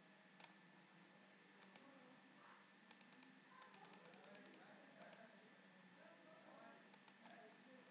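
Faint computer mouse clicks over near-silent room tone: single clicks and pairs, with a quick run of about ten clicks near the middle, as a value spinner is clicked step by step.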